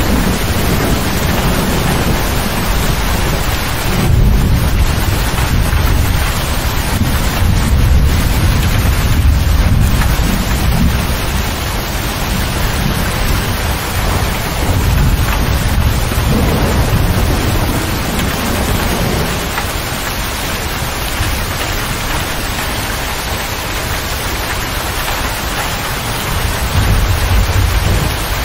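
Heavy rain drumming on a motor grader's cab roof and windshield, heard from inside the closed cab, as a steady loud hiss. Deep rolling rumbles of thunder swell and fade several times beneath it.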